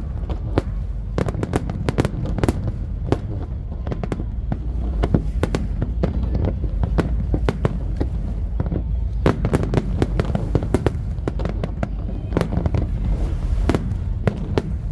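Aerial fireworks display: many sharp bangs and cracks in quick, irregular succession over a steady low rumble.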